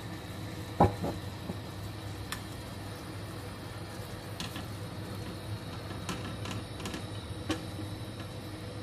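Silicone-tipped kitchen tongs knocking and clicking against a stainless steel frying pan while stirring a thick sauce, with a sharp knock about a second in and scattered lighter clicks after, over a steady low hum.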